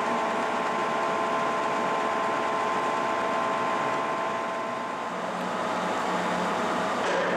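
1955 King 100-inch vertical turret lathe running: a steady machine hum and hiss with several steady whining tones. The tones fade about five seconds in, and a lower steady hum comes in after.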